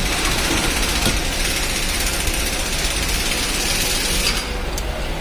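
Steady mechanical running noise with a few faint clicks; the higher hiss thins out near the end.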